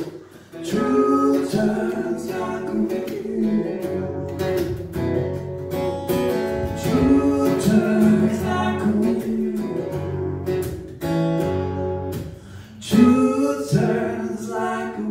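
Live acoustic song: a woman singing through a PA microphone, accompanied by an acoustic guitar.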